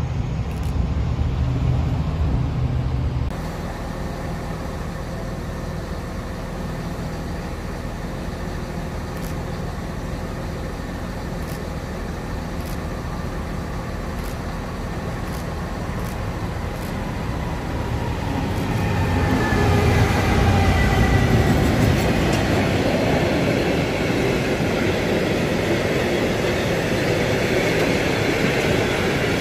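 A Class 68 diesel locomotive's engine rumbling at the platform for the first few seconds. Then a diesel-hauled freight train of covered wagons approaches, growing louder about two-thirds of the way through, and passes close by with a steady rumble of wheels and wagons.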